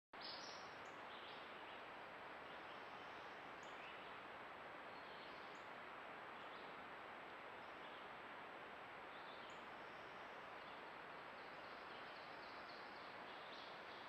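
Faint woodland ambience: a steady low hiss with a few short, high bird chirps scattered through, and a thin steady high tone.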